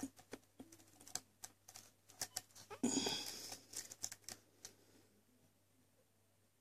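Faint, irregular metallic clicks and ticks of a lock pick working the pin stack of an ASSA seven-pin lock under light tension while the lock is held in a false set, with a louder rasping scrape lasting about a second around three seconds in. The clicking stops about two-thirds of the way through.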